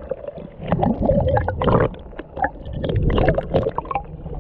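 Water heard through a submerged camera: muffled gurgling and sloshing, with many irregular small pops and knocks.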